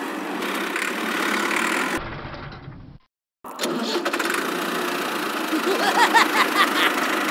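Tractor engine running with a steady pulsing rumble; it fades and cuts out to silence about three seconds in, then comes back abruptly as if starting up again. Near the end, high squeaky chirps sound over it.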